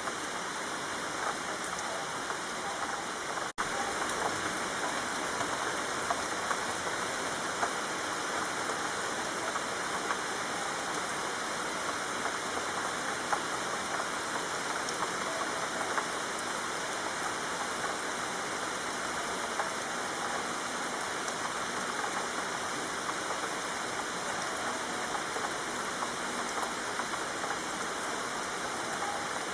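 Steady rain falling on a city street, an even hiss dotted with many small drop hits, with a split-second dropout about three and a half seconds in.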